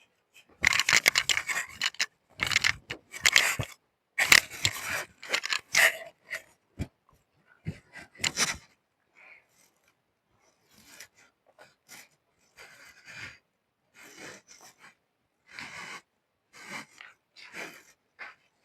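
Fabric of a garment rustling and rubbing as it is wrapped and rearranged on the body, in irregular bursts that are louder in the first six seconds and fainter and more scattered after.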